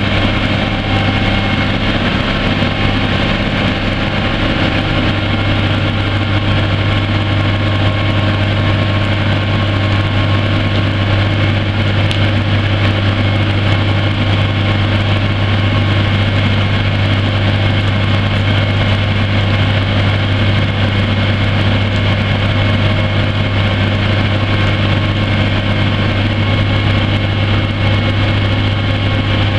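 A Cummins LTA10 10-litre inline-six diesel in a 1992 Volvo WX64 trash truck, idling steadily with an even low hum.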